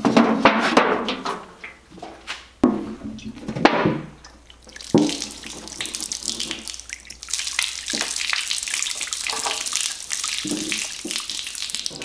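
Containers clunking on a shelf as a metal tin is pulled out, then, about five seconds in, a steady pour of liquid from the tin splashing over a hand and onto a concrete floor.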